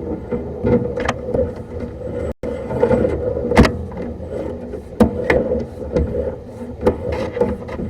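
Drain-cleaning equipment running with a steady machine hum, overlaid by repeated sharp knocks and clacks as hose is worked off its reel.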